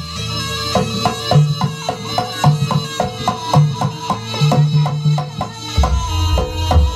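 Jaranan (kuda lumping) traditional music: drums and pitched struck percussion beat a steady rhythm of about three strikes a second over a held droning note, with a deeper low part coming in near the end.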